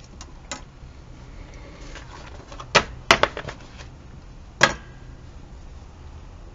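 A few sharp knocks and clicks: one a little under three seconds in, a quick run of three just after, and one more about a second and a half later, over a faint steady low hum.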